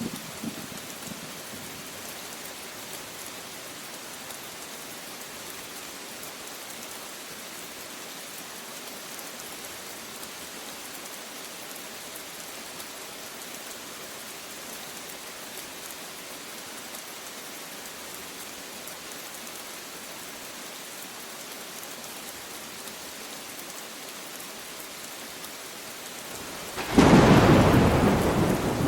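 Steady heavy rain hissing, then a sharp, loud thunderclap near the end that rumbles away.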